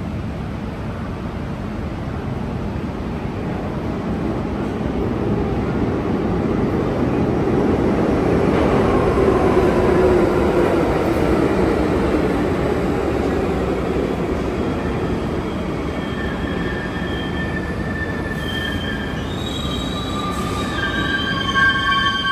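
New York City subway train running through the station, its rumble building to a peak about halfway through and holding. In the last several seconds the steel wheels squeal in several high, steady tones.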